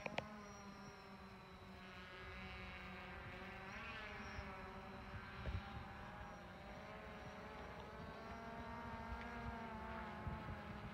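DJI Phantom 4 quadcopter's propellers buzzing in flight overhead, the pitch rising and falling as it manoeuvres. A short knock about halfway through.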